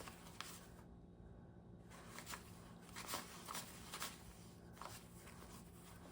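Faint, intermittent rustling and soft ticks of paper banknotes being handled and shuffled.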